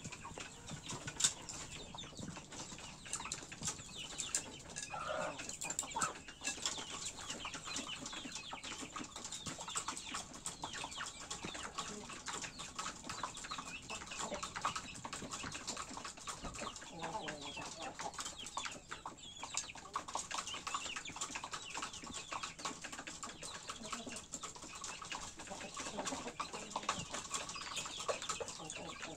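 Chickens clucking now and then, over a constant patter of small clicks and scratches.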